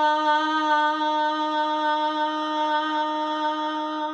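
A woman's voice holding one long, steady "aaa" on a slow out-breath through the mouth, a breathing exercise. It grows a little softer and stops just before the end.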